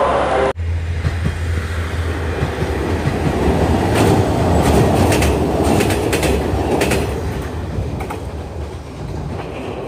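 KiHa 47-based 'Ametsuchi' diesel railcar running over a steel girder bridge: a steady low engine drone and rumble, with a quick series of wheel clacks over the rail joints between about four and seven seconds in. The sound fades as the train passes.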